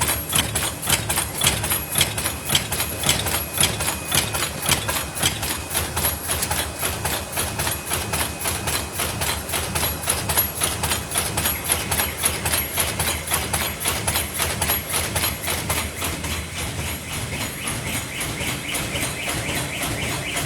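Paper lid forming machine running, a fast, regular mechanical clatter of repeated strokes. A steady high tone joins near the end.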